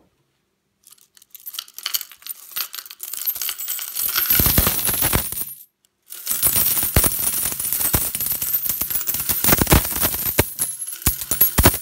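Coins poured out of a tipped pot, sliding and spilling in a jingling stream onto a heap of coins. It starts about a second in with scattered clinks, thickens into a dense pour, breaks off briefly a little before the middle, then pours on in a continuous clatter.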